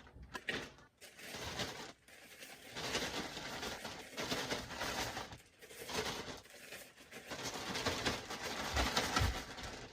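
A fork stirring egg-coated okra pieces through seasoned cornmeal, a gritty rustling scrape in repeated strokes as the okra is battered.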